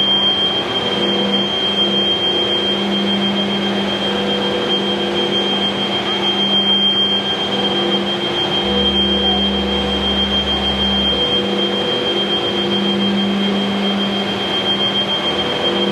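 Steady machinery drone: a constant high whine over a low hum, with a deeper rumble for a couple of seconds near the middle.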